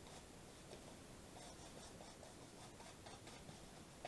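Faint scratchy strokes of a paintbrush on corrugated cardboard, putting on a thin wash of gesso.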